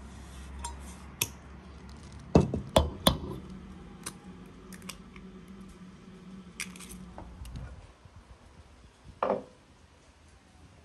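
Kitchenware being handled, with dishes and utensils clinking and knocking. There are a few sharp knocks; the three loudest come in quick succession about two and a half seconds in, and another comes near the end.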